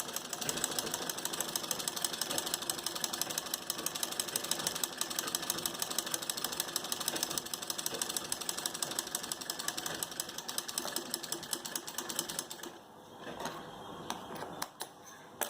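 Sewing machine stitching at speed, a fast, even clatter of the needle mechanism. It stops about 13 seconds in, followed by a few light clicks as the machine is handled.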